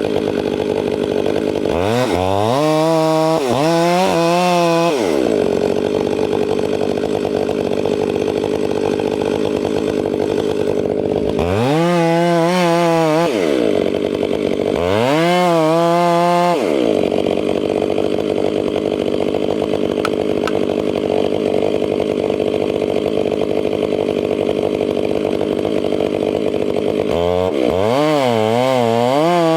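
Chainsaw running through a long felling cut on a spruce, a steady loud engine-and-chain noise. Several times (about two seconds in, twice around the middle, and near the end) the engine pitch sweeps up and back down as the throttle and load change.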